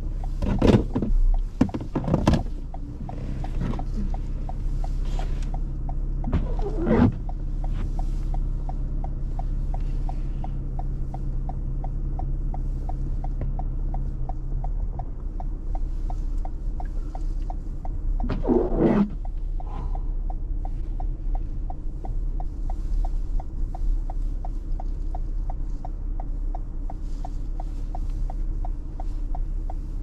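Cabin noise of a 2021 Toyota RAV4 Hybrid driving slowly on a snow-covered road: a steady low rumble of tyres over snow with a fast, even ticking. There are a few louder thumps, twice in the first seconds, once about seven seconds in and once near the middle.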